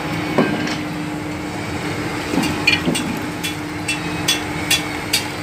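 Steady hum of running machinery, with a fixed low drone. From about halfway, a run of sharp ticks sounds over it, roughly two a second.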